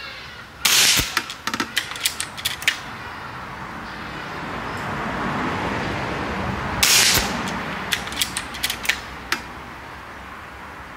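Two shots, about six seconds apart, from a Seneca Sumatra 2500 .25-calibre pre-charged pneumatic air rifle. Each shot is followed by a quick run of metallic clicks as the action is worked and the next pellet loaded.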